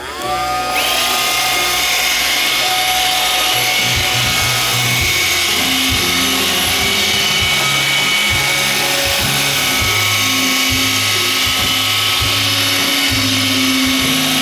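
iRobot Roomba 550 robot vacuum starting up and running: its motors spin up with a rising whine in the first second, then run steadily with a high whine over a lower motor hum, with occasional short knocks.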